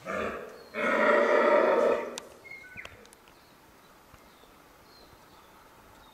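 Red deer stag roaring in the rut: a short first bellow, then a louder, longer roar of about a second and a half that ends about two seconds in.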